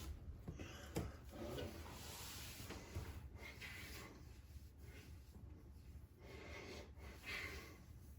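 Faint rubbing and handling noises with a few light knocks, about a second in and about three seconds in.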